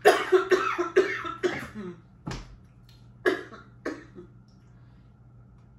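A woman coughing hard, a quick run of coughs about every half second, then a knock on the table a little over two seconds in, followed by two more single coughs.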